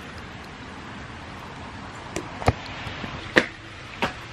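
Steady outdoor hiss with a few sharp clicks and knocks in the second half, the two loudest about a second apart.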